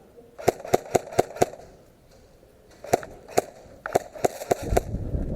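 Airsoft gun firing close by in quick semi-automatic shots: a run of five sharp cracks about four a second, then two, then three more. A low rumble comes in near the end.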